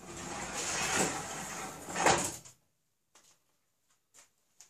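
A rifling cutter scraping through a steel rifle barrel as the rod is pushed through the bore on a hand-worked rifling bench, a rough scrape lasting about two and a half seconds that ends in a louder clack. A few faint clicks follow.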